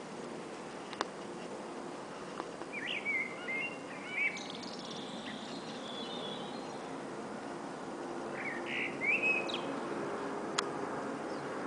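Small birds chirping in short bursts, about three seconds in and again near nine seconds. Beneath them runs a steady distant jet hum from a descending Airbus A320neo's Pratt & Whitney geared turbofans, growing gradually louder toward the end.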